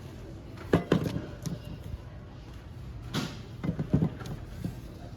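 Two short clusters of knocks and clicks from objects being handled, about a second in and again around three to four seconds in.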